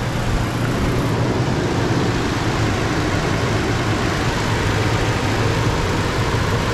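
2019 Toyota Tacoma's 3.5-litre V6 idling steadily, heard with the hood open. It is running on fresh oil after an oil change, with no warning lights showing.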